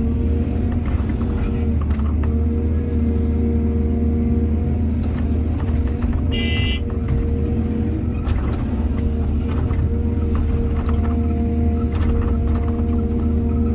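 Heavy diesel excavator engine running steadily, with scattered knocks and clanks from the working machine. A short high-pitched tone sounds about halfway through.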